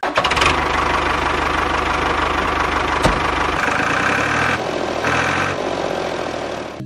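Tractor engine running with an even, knocking chug, its note shifting a little about halfway through as the tractor moves off.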